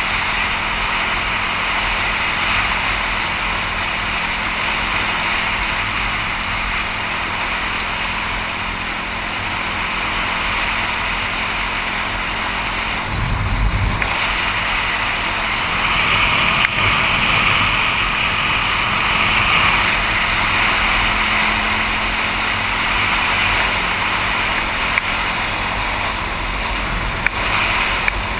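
Dirt bike cruising on a paved road, heard from a helmet-mounted camera: a steady roar of wind over the microphone, with the bike's engine running steadily underneath. There is a brief low buffet about thirteen seconds in, and the roar is a little louder from about sixteen seconds on.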